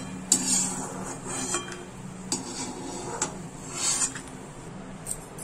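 Perforated steel slotted ladle scraping and clinking against a metal kadai as fried cashews and peanuts are scooped out and tipped into a steel bowl: about half a dozen separate clinks and scrapes.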